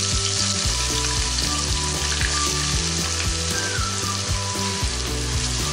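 Thinly sliced onions sizzling in hot oil in a deep pot, a steady hiss of frying just after they go in.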